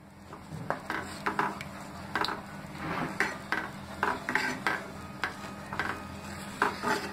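Wooden spatula stirring and scraping hot milk in a dark non-stick kadai, in a run of short, irregular strokes against the pan, over a steady low hum. The milk is being stirred as it is reduced and thickened, with saffron and cardamom powder just added.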